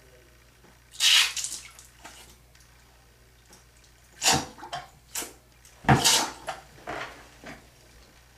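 Water splashing in short bursts, about five times, as it is squirted into the ear canal and runs out during ear irrigation to flush out earwax.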